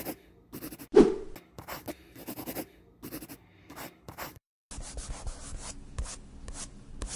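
Sketching sounds: a drawing tool scratching across paper in quick, short strokes, stopping briefly about four and a half seconds in.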